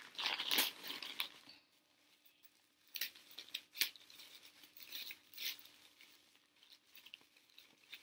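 Thin tissue paper crinkling and rustling as it is handled and unwrapped: a busy flurry over the first second and a half, then scattered short rustles.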